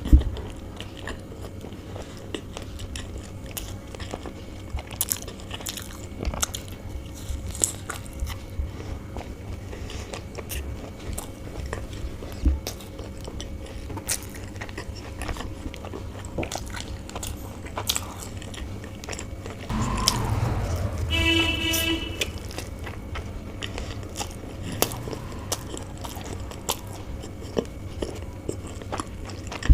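Close-up chewing and biting of chicken bao buns, with frequent small wet mouth clicks. About twenty seconds in there is a louder couple of seconds with a short pitched sound.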